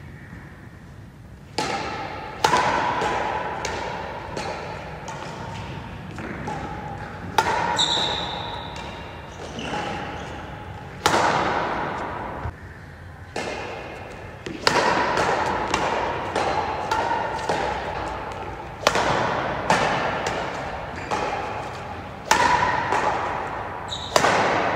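Badminton rackets striking a shuttlecock in a rally, sharp hits roughly once a second at an uneven pace, each ringing out in the echo of a large, bare indoor hall.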